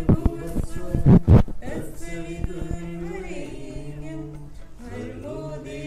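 Unaccompanied voices singing a Hindu devotional aarti chant. A few sharp hits sound over the singing in the first second and a half.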